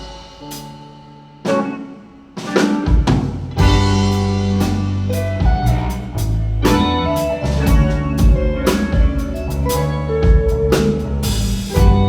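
Band music with drum kit: after a short pause broken by a single hit, drums, bass and other instruments come back in together and play on with a steady beat.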